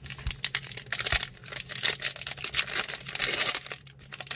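Plastic wrapper of a Topps Archives baseball card fat pack being torn open and crinkled by hand: dense, irregular crackling and tearing, with a brief lull near the end.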